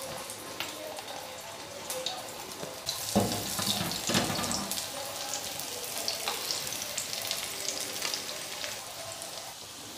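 Beef shami kababs sizzling and crackling in shallow oil on a flat iron tawa, a steady high hiss with small pops. It grows louder for about a second and a half, around three seconds in.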